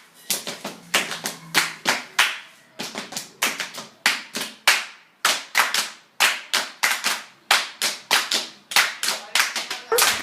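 Body percussion: hands clapping in a quick, syncopated festejo rhythm, several claps a second in phrases with brief pauses between them. The clapping stops just before the end.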